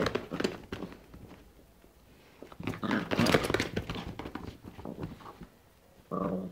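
Small dog playing rough, growling and snuffling as it roots and tugs at a cloth sheet, in two bursts, with one short bark near the end.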